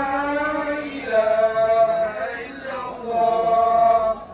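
A man's voice chanting in three long, held melodic phrases.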